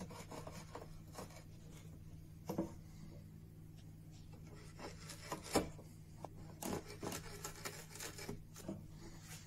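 Hand chisel paring wood in short, irregular scraping strokes along a narrow groove in a wooden camera panel, rounding out the channel for a ribbon light seal. The sharpest stroke comes about halfway through.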